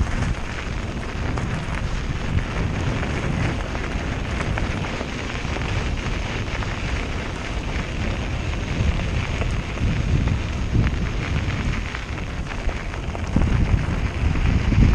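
Mountain bike rolling fast downhill on a gravel track: wind buffeting the microphone over a steady crackle of tyres on loose stones, getting louder near the end.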